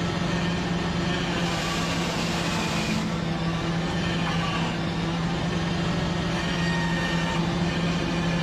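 Hydraulic tree-shaker fruit harvester running with a steady machine hum while its clamp shakes a fruit tree. A hiss rises over it from about one and a half to three seconds in and cuts off sharply.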